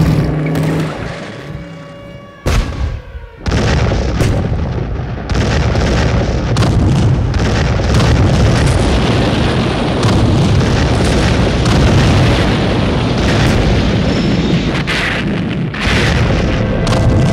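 Tank cannon fire and explosions as film sound effects: a few seconds in, a dense, continuous run of booms and blasts begins.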